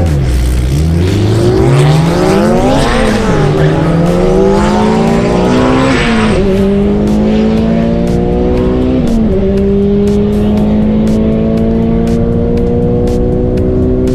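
Turbocharged Honda GSR four-cylinder in a Civic hatchback at full throttle on a drag-strip pass. It pulls away from the line, the revs climb and drop sharply at three upshifts about three seconds apart, then it holds a long pull in the top gear until the revs fall at the very end.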